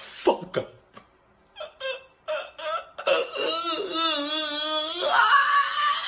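A man crying out loud: short choked sobs, then a long wavering wail that jumps higher about two seconds later.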